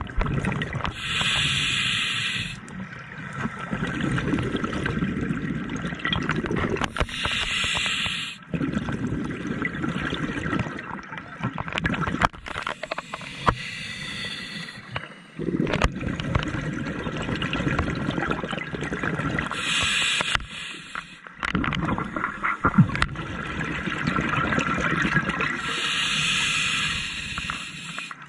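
Scuba diver breathing through a regulator underwater. A hiss of inhaled air comes every several seconds, and between the hisses there is a bubbling gurgle of exhaled air.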